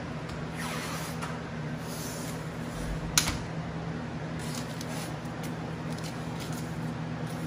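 Adhesive tape being pulled off its roll with a short scraping rip, then handled and pressed in place, with one sharp click about three seconds in. A steady low hum runs underneath.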